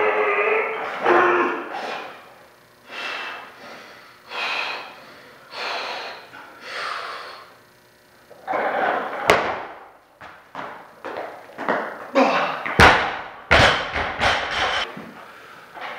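A loaded bumper-plate barbell is dropped from overhead onto the gym floor, landing with heavy thuds and bounces about thirteen seconds in. Earlier come shouts and hard breaths during the clean and jerk, and a sharp clank about nine seconds in.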